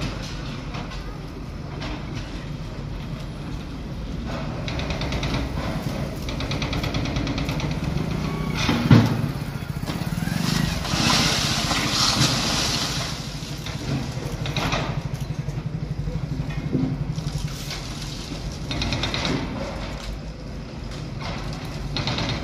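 Backhoe loaders' diesel engines running steadily as they tear down a building, with a loud bang about nine seconds in and a louder rush of noise for a couple of seconds soon after.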